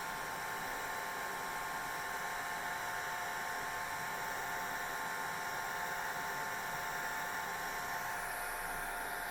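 Hair dryer running steadily: an even blowing hiss with a constant whine from its motor and fan.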